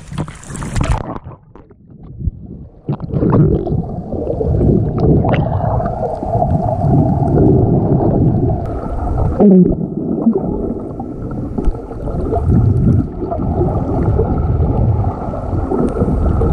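Waves and wind at the water's surface cut off about a second in as the action camera goes under; then muffled underwater water noise, a dense sloshing and gurgling rumble against the camera's waterproof housing as the snorkeler swims.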